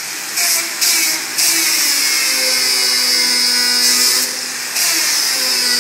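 Angle grinder running, its disc grinding on steel in spells: a harsh hiss over the motor's whine that breaks off briefly a few times, once for about half a second near four seconds in.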